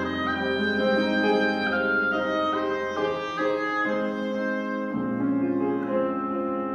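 Oboe playing a melody of held notes over grand piano accompaniment, in a classical oboe and piano sonata.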